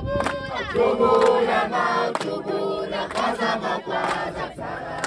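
Crowd of women and men singing a Zulu ceremonial song together in chorus, with sharp beats about once a second.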